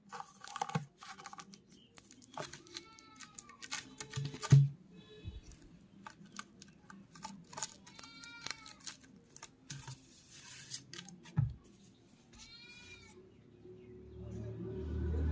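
Packaging being handled during an unboxing: scattered crinkles, clicks and taps, with three short pitched calls that rise and fall. Music comes in near the end.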